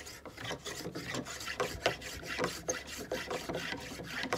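Block plane cutting along a wooden pencil blank held in a pencil-making jig, in quick repeated passes of about three or four a second, each pass peeling off a curled shaving.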